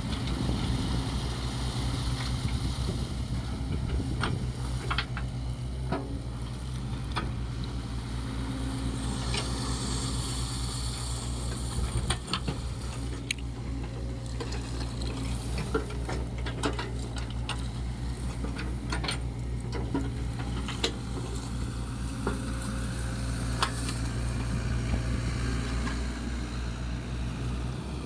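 Sany SY55C mini excavator's diesel engine running at a steady speed, with scattered sharp knocks and clanks from the machine at work.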